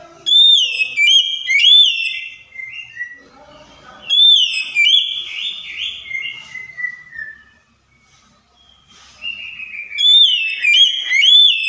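Oriental magpie-robin (kacer) singing: three loud runs of clear, whistled notes that slide up and down, each lasting a few seconds with short pauses between.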